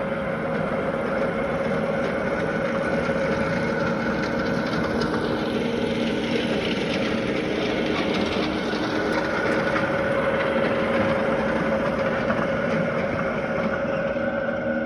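Lawn mower running steadily: a constant motor drone with a fixed, unchanging whine.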